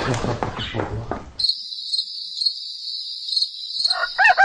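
After about a second and a half of noisy bustle, a cut brings in crickets chirping: a steady high-pitched trill that swells about twice a second, the usual sound of night. Near the end a rooster starts to crow loudly, marking the change to morning.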